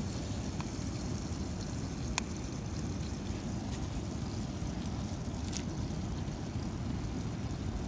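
Steady low rushing of a waterfall, with a few sharp crackles of a wood fire scattered over it; the loudest crackle comes about two seconds in.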